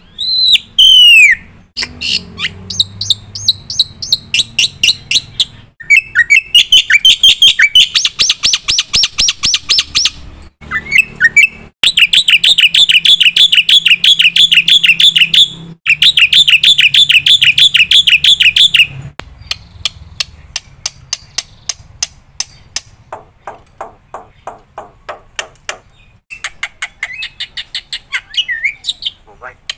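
Black-winged myna (jalak putih) in loud, full song: a varied mix of slurred whistles and long, fast trains of repeated sharp chattering notes, the phrases breaking off and restarting abruptly.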